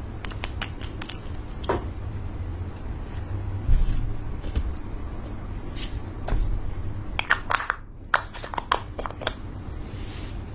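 Close-up handling sounds of slime-making: a plastic spatula scraping foundation makeup from its jar and smearing it on clear slime. Scattered sticky clicks and small scrapes run over a low handling rumble, with a quick cluster of clicks about seven to nine seconds in.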